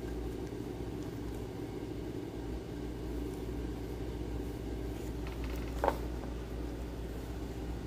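Steady low background hum, with one short click about six seconds in.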